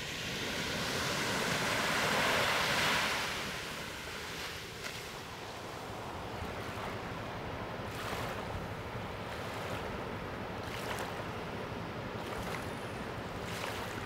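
Sea surf washing on a beach, with some wind. One wave swells and breaks about two to three seconds in, then a steady wash of the sea follows, broken by a few brief sharp sounds in the second half.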